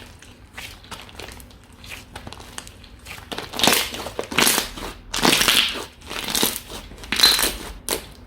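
Slime being squeezed and pressed by hand, making crunching, crackling sounds. Faint small clicks give way, about three seconds in, to a run of louder crunches.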